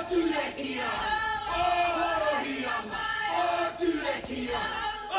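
Dramatic background music of many voices chanting together, like a battle cry or choir.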